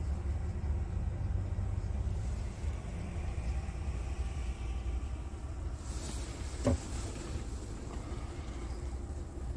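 Scania S truck's diesel engine idling steadily, a low rumble heard from inside the cab. A little before seven seconds in, a short hiss and then a single sharp click.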